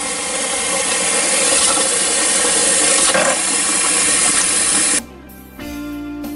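Tap water running hard and splashing into a plastic bowl as celery stalks are rinsed under it. The water cuts off abruptly about five seconds in, and guitar music starts near the end.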